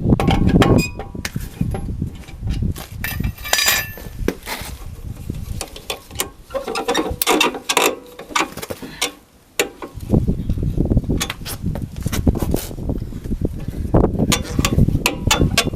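Irregular metallic clicks and clinks of hand tools being worked on a car during a tyre change, with a low rumble at the start and again for the last few seconds.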